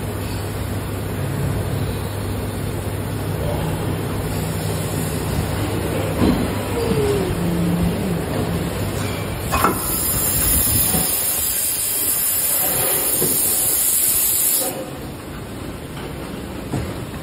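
Haitian plastic injection molding machine running a cycle on a basket mold: a steady low hum, a couple of knocks and a short falling whine, then a loud hiss for about five seconds that cuts off suddenly.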